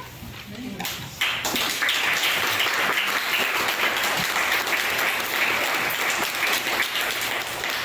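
Audience applauding, breaking out about a second in.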